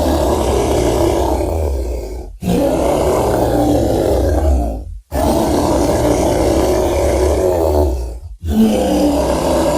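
Designed Majungasaurus dinosaur roar, layered from bear, elephant and gorilla calls: a run of long, low roars of two to three seconds each, broken by brief silent gaps about two and a half, five and eight and a half seconds in.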